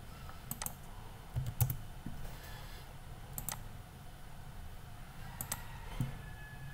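A few scattered computer keyboard keystrokes and mouse clicks, some in quick pairs, over a low steady hum.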